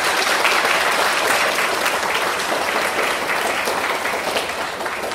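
Audience applauding: many people clapping together, easing off slightly near the end.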